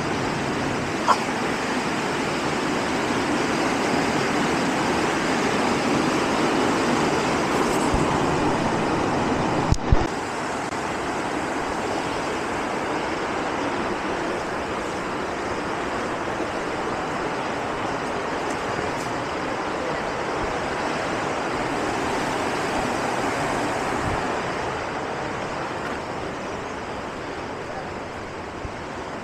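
Steady rush of fast-flowing mountain creek water, an even continuous noise that eases a little near the end. Two brief knocks, one about a second in and one about ten seconds in.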